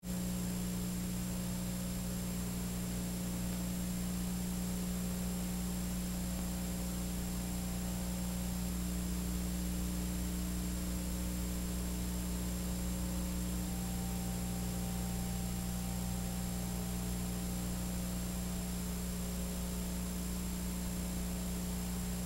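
Steady electrical mains hum with a faint hiss beneath it.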